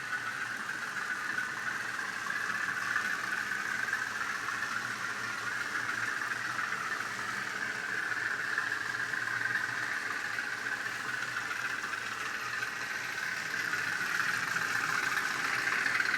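N gauge model of diesel-electric locomotive LMS 10001 running with DCC sound: its decoder plays a diesel engine sound through the model's small onboard speaker as a steady drone, which grows a little louder near the end.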